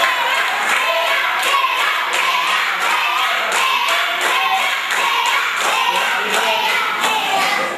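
Music with repeated hand claps.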